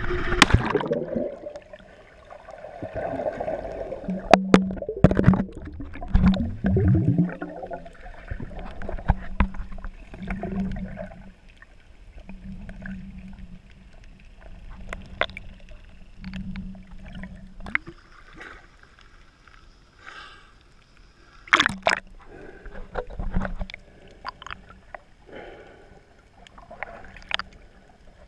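A jump into the sea with a splash in the first second or two, then muffled underwater sound heard through an action camera's waterproof housing: gurgling bubbles, scattered clicks and knocks, and a low hum that comes and goes.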